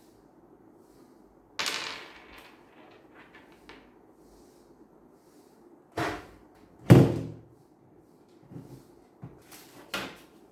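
Knocks and thuds of a PC case and its parts being handled and set down: four louder hits and a few lighter knocks, the loudest about seven seconds in, with a low ring after it.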